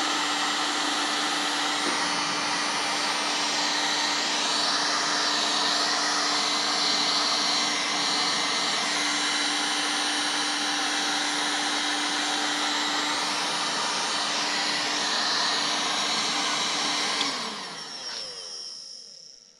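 Handheld electric heat gun blowing steadily with a constant hum, warming a cold bait mold. Near the end it is switched off and its fan winds down, the hum falling in pitch as it fades out.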